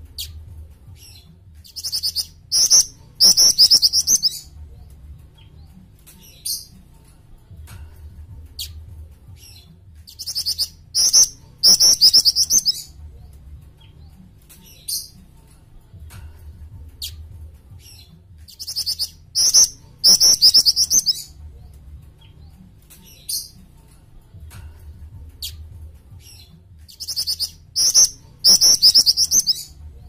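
Jing-jing (black-winged flycatcher-shrike) singing: four bouts of high, rapid trilled chirps about eight seconds apart, each a few short notes then two longer, louder trills, with scattered single chirps between.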